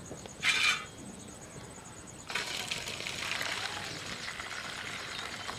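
Thin lentil water being poured from a tilted pan into a steel bowl, starting about two seconds in as a steady splashing stream: excess water is being drawn off the boiling masoor dal. Before it, about half a second in, there is a brief loud noise.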